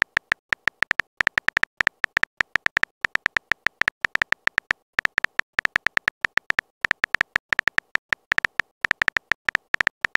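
Phone on-screen keyboard typing sound effect: short, crisp key clicks, about six a second, in uneven runs with brief pauses as a text message is typed out.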